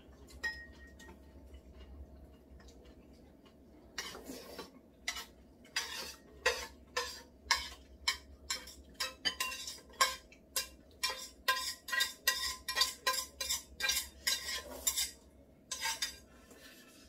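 A metal utensil scraping and clinking against a pot tipped over a bowl, scraping out the last of the noodles: a quick run of sharp clicks, about two a second, starting about four seconds in and stopping shortly before the end.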